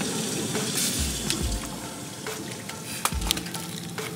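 Boiling water from a stovetop kettle poured into a glass French press: a steady hiss with a few sharp metal clinks from the kettle.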